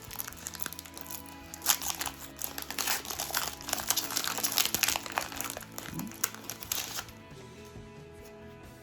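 Foil wrapper of a Pokémon Chilling Reign booster pack crinkling as it is handled and opened, a dense crackle from about two seconds in until near the end, over background music.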